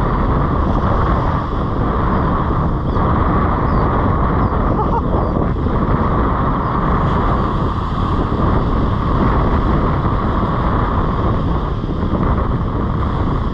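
Surf breaking and washing up the beach, with wind buffeting the microphone in a loud, steady rush.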